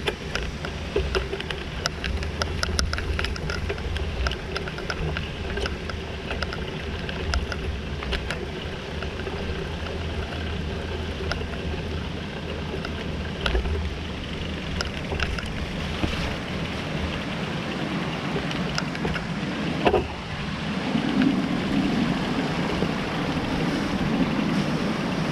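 Bicycle riding down a dirt trail: wind buffets the microphone with a steady low rumble over a haze of tyre noise, broken by frequent small clicks and knocks. A sharper knock comes about twenty seconds in.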